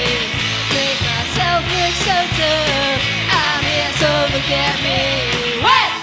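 Garage pop band playing live: drums keeping a steady beat under guitars and a sung melody. Near the end the voice rises in a quick upward swoop.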